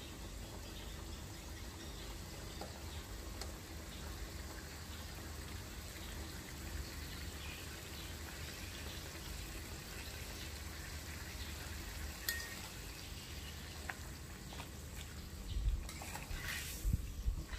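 Water simmering in a metal wok with bok choy blanching in it, a steady hiss. About a second and a half before the end, a metal utensil starts stirring the greens and knocks and scrapes against the wok.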